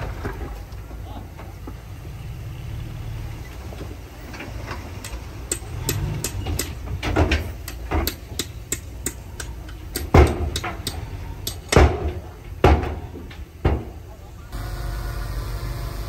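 Heavy earthmoving machinery at work: a low diesel engine rumble under irregular clanks and several loud knocks and thuds. Near the end the sound switches abruptly to a steady, even engine drone.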